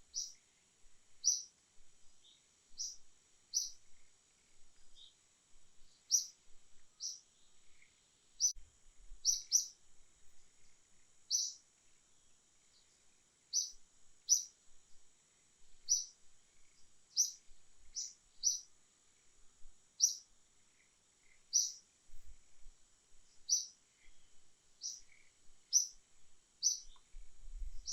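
A bird chirping: short, sharp, high chirps repeated roughly once a second, some in quick pairs, over a faint steady high-pitched hum.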